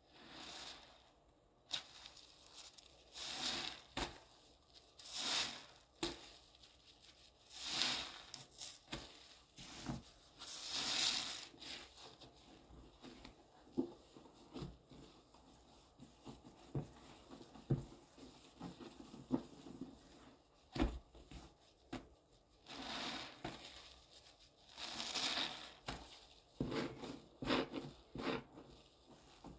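Soapy sponge squeezed and squished by a gloved hand in thick foamy cleaning paste: repeated wet squelching and fizzing swells, about one every two seconds, with a quieter stretch of small wet clicks midway.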